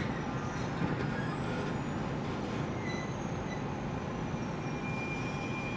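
JR Kyushu 813 series electric train running, heard from inside the car: a steady rumble of wheels and motors, with the thin whine of its Toshiba GTO traction inverter coming in about halfway through.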